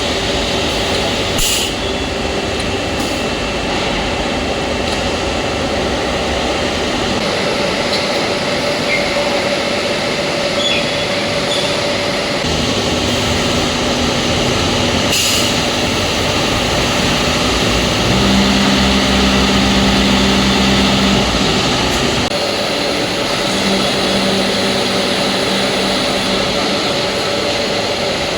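Hydraulic press machine for wetcast concrete slabs running: a steady mechanical drone with a constant hum. There are two short, sharp hisses, one about a second and a half in and one about fifteen seconds in, and a deeper hum swells in about eighteen seconds in and drops away about three seconds later.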